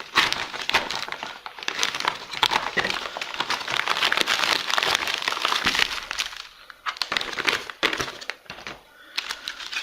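Plastic MRE bag with a peelable seal being opened and emptied: dense crinkling of plastic packaging for about six seconds, then sparser crinkles and light knocks.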